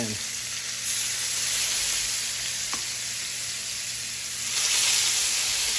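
Filet mignon steaks sizzling as they sear in smoking-hot olive oil in a cast iron skillet, a steady hiss of a hard high-heat sear. The sizzle swells about a second in and gets louder again about four and a half seconds in as more fillets go into the pan.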